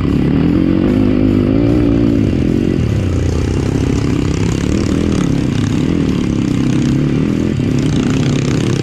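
Dirt bike engine running at low speed, its pitch rising and falling a little as the throttle is worked.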